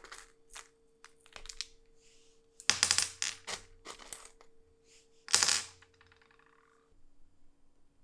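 Small metal awl parts being picked out of vibratory-tumbler media and dropped onto a wooden tabletop: light clicks and rattles of the media, with a loud metallic clatter about three seconds in and another about five and a half seconds in.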